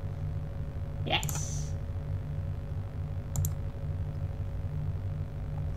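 A few sharp computer clicks over a steady low electrical hum: one about a second in and a thinner one a little past three seconds.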